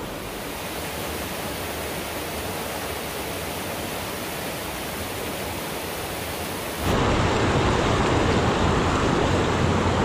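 Mountain creek water rushing over rocks, a steady hiss of running water. About seven seconds in it abruptly gets louder and fuller.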